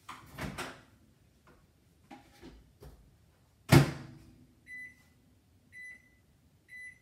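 Countertop microwave oven: a few clicks and knocks as it is handled, then its door is banged shut a little over halfway through. Three short high keypad beeps follow, about a second apart, as the cooking time is entered.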